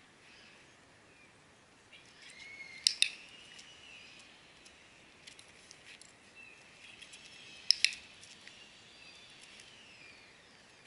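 Dog-training clicker sounding a quick double click about three seconds in and again near eight seconds, marking the German Shepherd's behaviours. Faint birdsong runs behind it.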